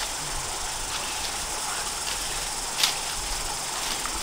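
A forest stream flowing steadily over rocks, with one short crackle about three seconds in.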